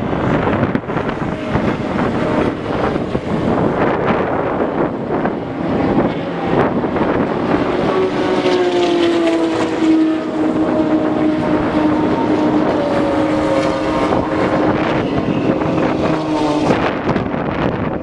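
Heavy wind noise on the microphone. From about halfway in, a vehicle engine drones at a steady pitch that sags slowly, then cuts off suddenly near the end. A few scattered thumps sound throughout.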